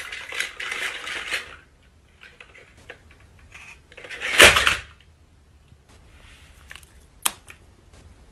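A battery-powered toy dinosaur moving on a wooden floor, with scattered clicks and clatter. There is a louder noisy burst about four and a half seconds in and a sharp click near the end.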